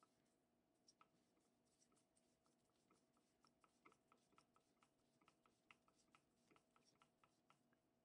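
Very faint, uneven clicks and light scraping, a few each second, of a drywall screw being turned by hand into a block of wood with the screwdriver bit of a camping shovel multi-tool.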